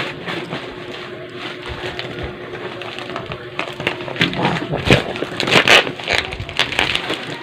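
Irregular taps, clicks and rustling from a tablet keyboard case being handled and tried out, louder and busier from about four to six seconds in.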